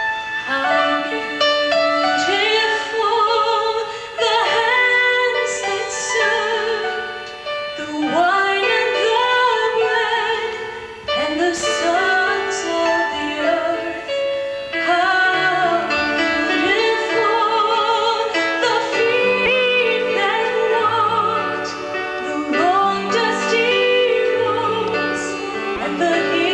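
A female voice singing a slow song with wide vibrato, over sustained piano or keyboard chords.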